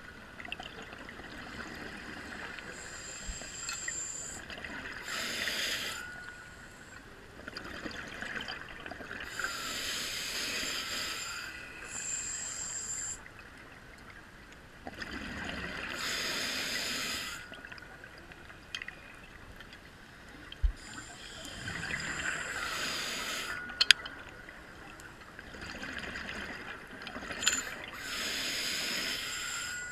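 A scuba diver breathing through an open-circuit regulator, about once every six seconds. Each breath is a hissing inhale with a faint whistle, then a rush of exhaled bubbles.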